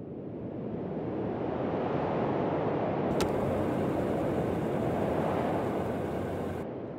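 Steady rushing wind that swells up, holds, and fades away near the end, with a single short click about three seconds in.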